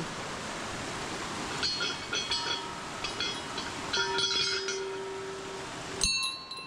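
Temple bells being rung: several sharp ringing strikes starting about a second and a half in, one bell's ring hanging on for more than a second, and a loud strike near the end, over a steady hiss.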